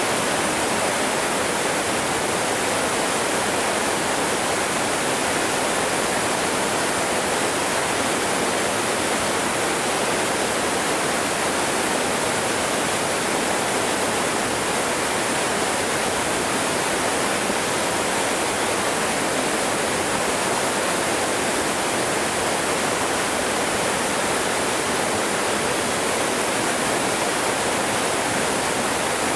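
Waterfall and the white-water stream below it rushing over rocks, a steady, even roar of falling water that does not change.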